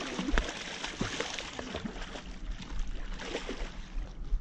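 Hooked salmon thrashing and splashing at the surface of shallow water close by, in irregular sharp splashes, the loudest about half a second in and again near the end, over the steady rush of the river.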